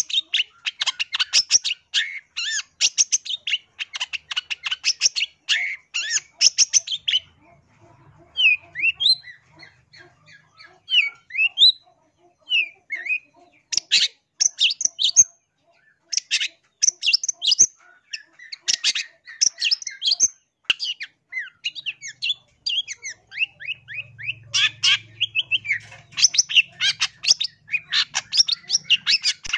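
Long-tailed shrike (cendet) singing: rapid runs of harsh, scratchy chattering notes, broken by short pauses that hold only a few slurred whistles before the fast chatter starts again.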